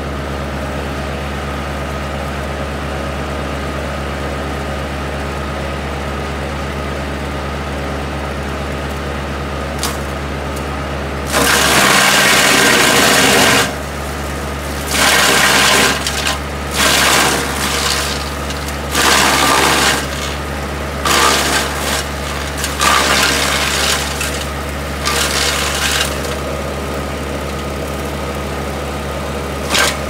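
Small tractor's engine running steadily, driving a homemade tractor-mounted wood chipper. About eleven seconds in, branches start going through the chipper: one loud chipping burst of about two seconds, then shorter bursts every couple of seconds until near the end.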